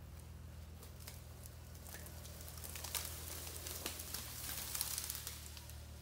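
Crackling and snapping of twigs and branches as a cut tree is pushed over and goes down through the neighbouring trees, the snaps coming thicker and louder from about three seconds in, over a steady low hum.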